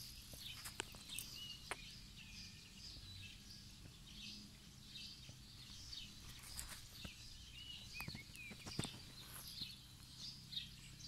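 Faint outdoor ambience of birds chirping: many short, high calls throughout, a few of them sliding down in pitch, over a low steady hum. A few sharp clicks are mixed in.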